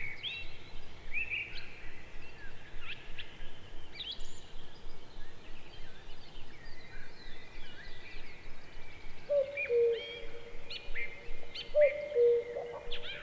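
Common cuckoo calling its two-note falling "cuck-oo" twice in the second half, over a background of small songbirds chirping high and thin.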